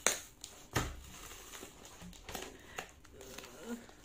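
Courier package wrapping crinkling and crackling as it is pulled at by hand to tear it open without scissors. There are two sharp crackles in the first second, the second with a dull thud.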